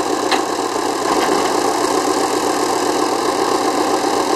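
Scania-Vabis L36 truck's diesel engine idling steadily, with one short click about a third of a second in.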